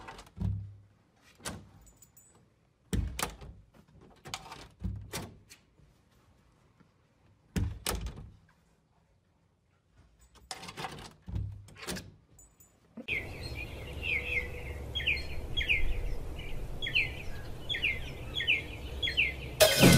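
An interior door being worked by its metal lever handle: irregular knocks and latch clicks as the door bumps against its frame, about a dozen over some thirteen seconds. Then a steady outdoor hum comes in, with a bird chirping in quick repeated notes.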